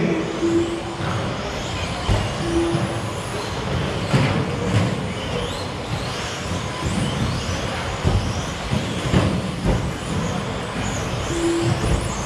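1/10-scale electric stadium trucks with 13.5-turn brushless motors racing on an indoor carpet track: motors whining up and down in pitch, tyres scrubbing, and repeated thuds as trucks land off jumps. A short low beep sounds three times, near the start, about two and a half seconds in, and near the end.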